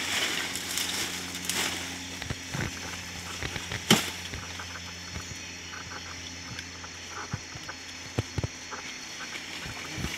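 Dry leaves and stalks rustling and snapping as plants are pulled and handled in undergrowth, with a sharp snap about four seconds in. A steady faint drone runs underneath.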